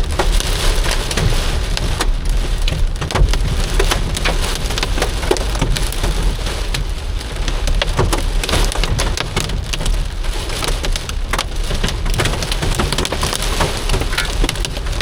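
Hail hitting a moving car's roof and windshield in a dense, irregular rattle of sharp clicks over steady storm noise. It is heard from inside the car, with a low road rumble underneath.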